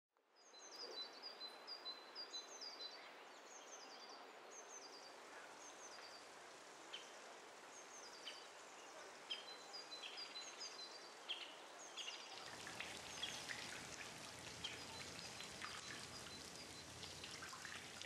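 Quiet outdoor ambience: a songbird's short falling chirps, repeated over a soft hiss. From about twelve seconds in, a light patter of raindrops joins.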